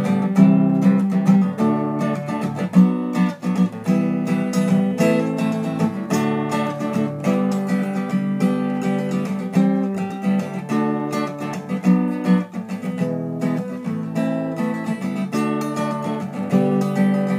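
Acoustic guitar strummed in a steady rhythm with no singing: an instrumental break between sung verses.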